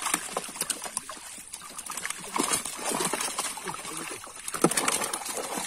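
A netted mass of live fish thrashing and splashing in shallow water, with many quick wet slaps and splatters as hands grab fish out of it. Brief voices now and then.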